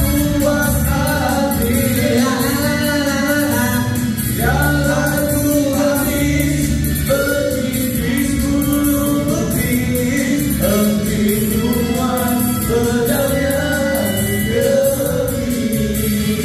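A singer performing a song over backing music with a steady beat.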